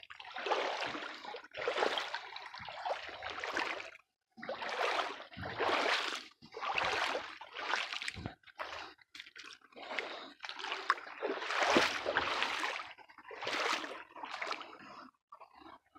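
Feet wading through shallow creek water, a sloshing splash with each step, roughly one a second, with brief pauses.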